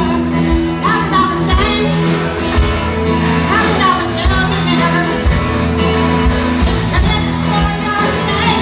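Live rock band playing: a woman singing over electric guitars, bass guitar and a drum kit, with a steady drum beat.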